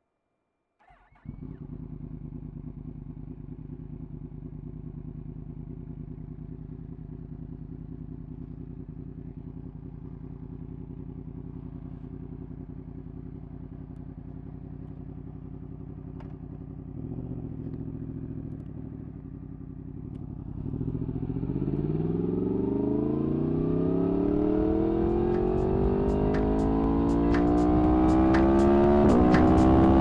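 Yamaha MT-10's inline-four engine with an Akrapovič exhaust starting up about a second in and idling steadily, with a short blip of throttle a little past the middle. Near the end it pulls away, the engine note rising steadily as it accelerates.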